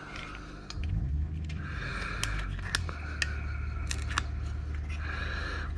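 A few light clicks as an old PC expansion card is handled and turned over, over a steady low hum.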